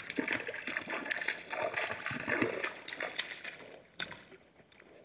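Hartmann's mountain zebras splashing and sloshing water as they move and drink in a shallow waterhole: irregular wet splashes that fade away after about three seconds, with one sharp knock about four seconds in.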